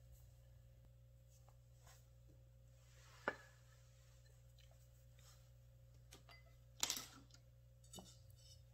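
Near silence with a faint steady hum, broken by a few light clicks and knocks of kitchenware: a sharp one about three seconds in and a double knock near seven seconds.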